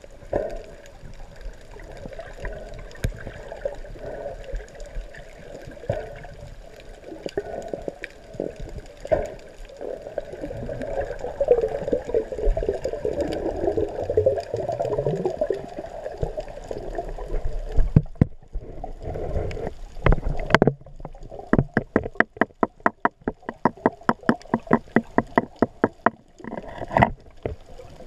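Water moving and gurgling around an action camera held underwater, heard muffled through its waterproof housing. In the second half comes a fast run of sharp clicks, several a second, for about four seconds.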